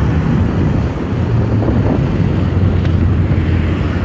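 Wind buffeting the microphone over the steady low drone of a vehicle travelling along a road.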